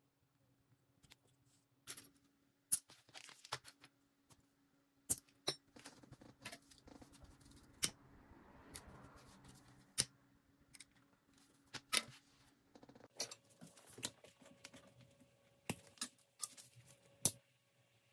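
Irregular clicks, taps and brief scrapes of tools and leather being handled on a workbench during leatherwork, over a faint steady hum.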